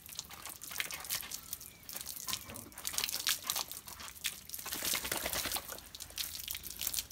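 Running water splashing unevenly onto a Cane Corso's head and coat as the dog is wetted for its bath.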